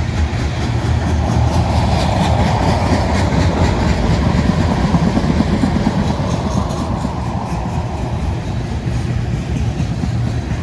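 Freight train cars rolling past, with a steady rumble and wheels clacking over the rail joints; the sound swells for a few seconds in the middle.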